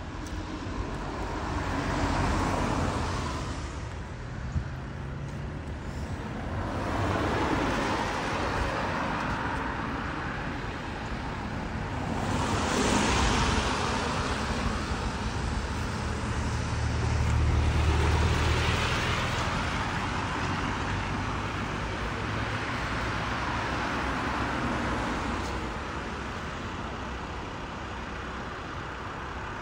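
Road traffic: cars passing one after another, about five times, each swelling and fading away. The loudest pass, about two-thirds of the way through, has a deep rumble under it.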